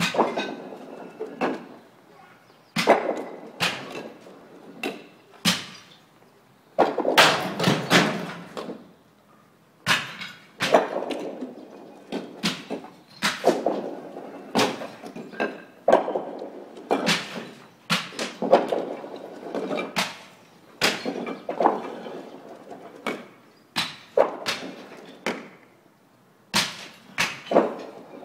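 Clay roof tiles being smashed while an old roof is stripped: repeated sharp cracks and clattering shards, coming in irregular clusters with short pauses between them.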